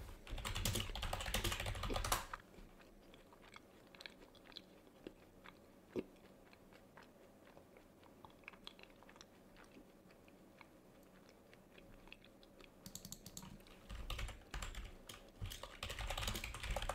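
Typing on a computer keyboard in two quick spells, one at the start and one near the end, with scattered single key or mouse clicks in between.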